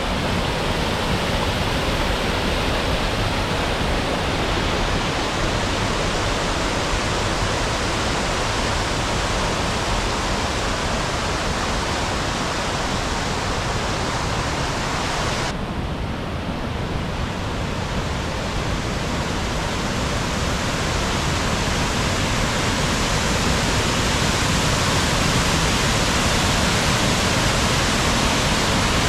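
Waterfall in full flow, heard close up: a loud, steady rush of falling water. About halfway through the sound briefly dulls, then returns.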